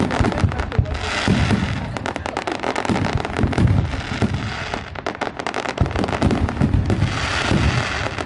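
Fireworks going off in a dense barrage: rapid overlapping bangs and crackling, with deeper booms under them.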